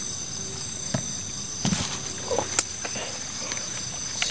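Steady high-pitched chorus of night insects, with a few rustles and sharp clicks of close handling over it, the loudest click about two and a half seconds in.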